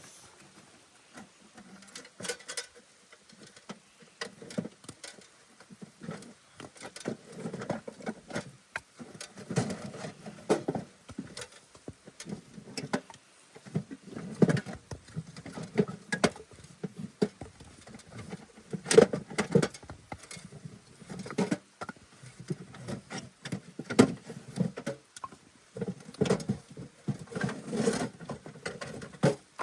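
Irregular rustling and shuffling with scattered sharp clicks and knocks, the loudest about 19 and 24 seconds in.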